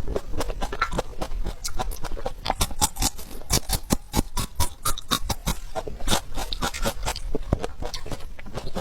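Close-miked eating sounds: a person chewing food with many quick, irregular mouth clicks and smacks.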